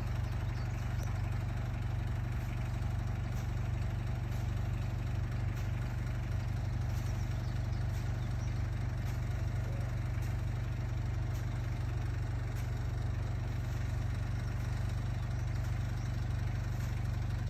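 Aquatic weed harvester's engine running steadily at an even speed, a constant low hum with no change in pitch.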